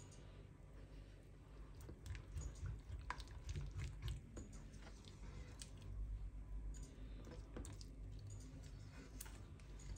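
Silicone spatula stirring Nutella into cream in an aluminium saucepan: soft, irregular wet squishing with scattered small clicks of the spatula against the pan.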